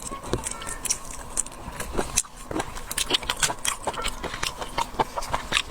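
Close-miked eating sounds of a person chewing and sucking raw marinated shrimp: a quick, irregular run of wet clicks and smacks.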